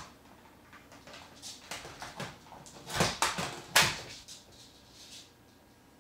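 Blue-and-gold macaw making a run of short, uneven calls, loudest between about three and four seconds in.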